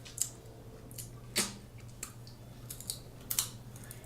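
Eating crab legs: a handful of short, scattered clicks and cracks of shell and mouth sounds, over a low steady hum.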